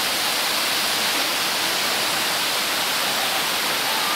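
Waterfall pouring down a rock face into a pool: a steady, even rushing of falling water.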